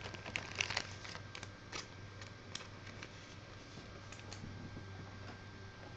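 Faint handling of trading cards and foil pack wrappers: light clicks and rustles, most in the first couple of seconds and a few more later, over a steady low hum.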